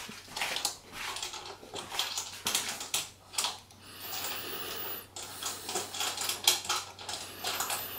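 Light, irregular clicks and small knocks of a hand working inside the hollow robot torso, running a quarter-inch wing nut off a long bolt.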